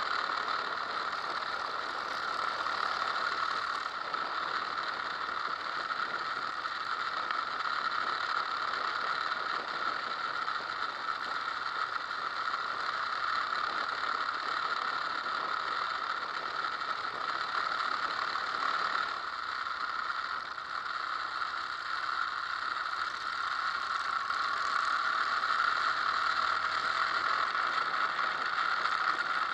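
Steady wind and vibration noise of a motorcycle ride, picked up by a bike-mounted Drift HD170 action camera: a dense rattling hiss with no clear engine note.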